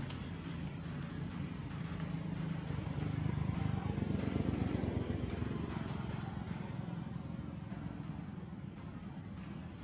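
A motor vehicle's engine: a low steady drone that grows louder about four seconds in and then fades, as a vehicle passing by would.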